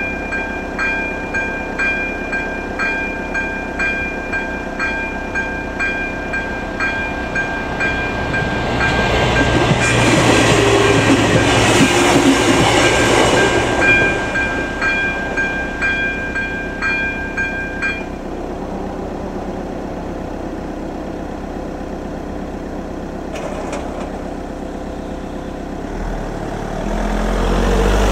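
The level crossing's AŽD ZV-02 electric bell rings at about one and a half strikes a second. A passenger railcar passes over the crossing, loudest between about 9 and 14 seconds in. The bell stops about 18 seconds in, and near the end a car engine starts to pull away over the crossing.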